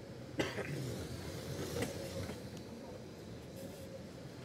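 Steady hum and low rumble of an indoor RC racing hall, with a sharp knock about half a second in and a fainter one near two seconds.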